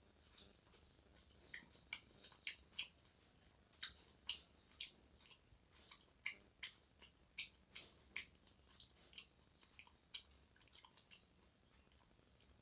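Faint chewing: a man eating rice and chicken by hand, his mouth making soft, irregular clicks and smacks, a few a second.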